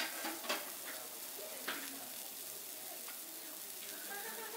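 Food sizzling on a teppanyaki iron griddle, with a few sharp scrapes and taps of metal spatulas on the plate, the loudest about half a second in.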